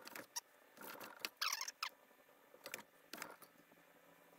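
Perforated metal pizza peel scraping and knocking against the hot stone deck and mouth of a Bertello pizza oven as the pizza is turned and lifted. The sounds come as several short, faint scrapes and clinks, the longest about a second and a half in.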